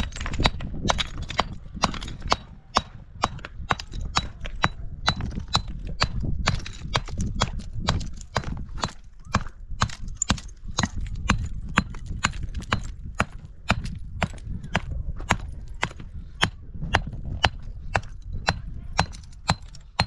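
A long, fairly even series of sharp knocks, about two a second, over a steady low rumble.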